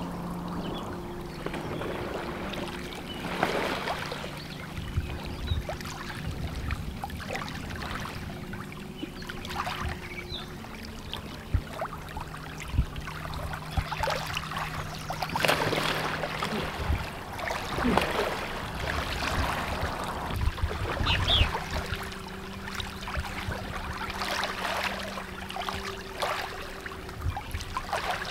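Kayak paddle strokes: a wooden Greenland-style paddle dipping and pulling through lake water, with splashes and drips every couple of seconds. A low steady hum runs underneath.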